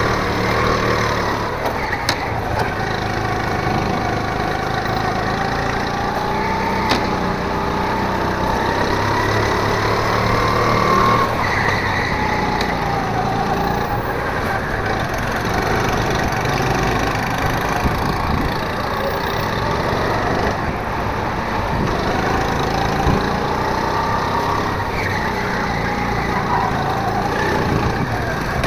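Go-kart engine running hard, its pitch rising and falling again and again as the kart accelerates and slows through a lap.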